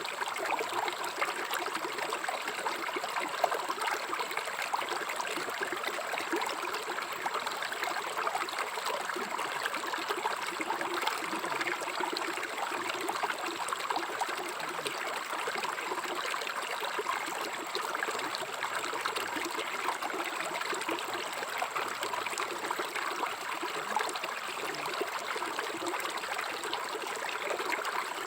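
River water flowing and babbling steadily over stones, a dense splashing trickle.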